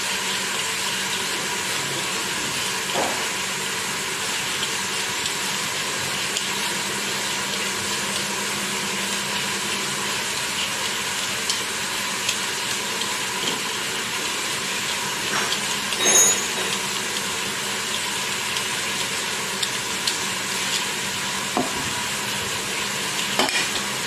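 Food frying in a pot with a steady sizzle, broken by a few light clicks and scrapes.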